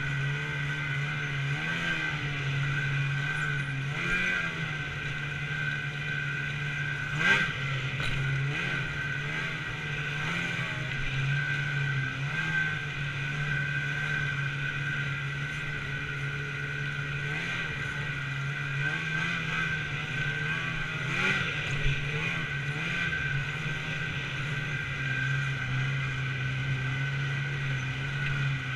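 Snowmobile engine running at a steady cruising speed, its pitch holding nearly even with small rises and dips. Two sharp knocks stand out, one about seven seconds in and one about twenty-one seconds in.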